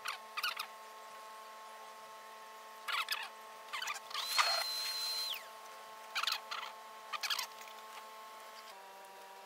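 A small knife slicing through the stitching and fabric of a mink vest's lining in short scratchy strokes, about six of them, over a steady background hum. About four seconds in, a high thin tone rises, holds for about a second and falls away.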